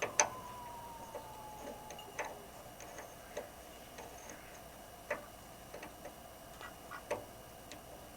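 Faint, irregular clicks and light knocks, one every second or two. A sharper click right at the start is followed by a faint tone that slides slowly down in pitch for about a second and a half.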